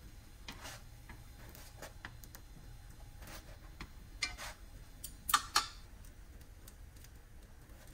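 Faint clicks and taps of metal chopsticks and a silicone spatula against a nonstick frying pan as chive pockets are turned onto their sides, with a few sharper clicks a little past the middle.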